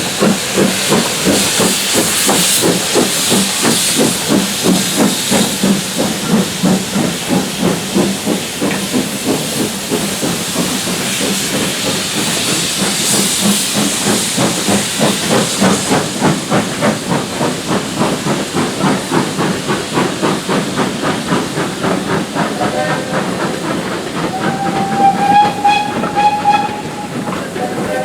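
Steam locomotive working hard, its exhaust beats quickening as it gathers speed, with bursts of steam hiss. Near the end it sounds its steam whistle for about two seconds.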